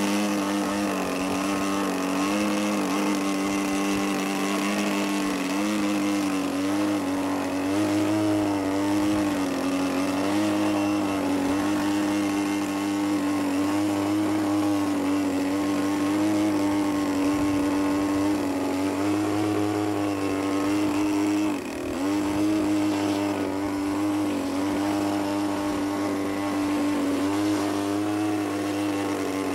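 Desert Aircraft DA-50, a 50cc single-cylinder two-stroke petrol engine, and its propeller on an RC aerobatic plane, running at steady high throttle while the plane hangs nose-up in a hover. The pitch wavers slightly with small throttle corrections and briefly dips about 21 seconds in.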